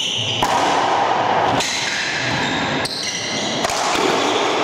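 Racquetball rally on an enclosed hardwood court: about four sharp smacks of the ball off racquets and walls, roughly a second apart, ringing in the court, with high-pitched sneaker squeaks on the wooden floor.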